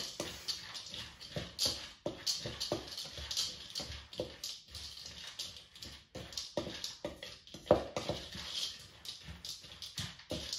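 Wooden spatula stirring oiled, seasoned pumpkin seeds in a bowl: irregular knocks and scrapes against the bowl, a few each second, with the seeds shifting.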